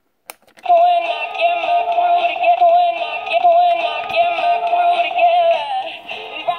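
LOL Surprise Jukebox B.B. toy jukebox playing a song with a singing voice through its small built-in speaker, with no bass. A click, then the song starts under a second in.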